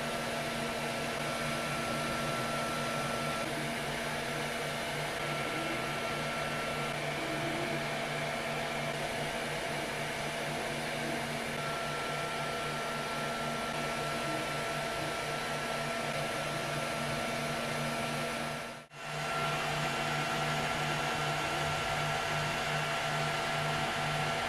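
Zonestar Z8PM4 Pro 3D printer running: a steady whir of its cooling fans with a constant hum and a faint high whine, briefly dropping out about 19 seconds in.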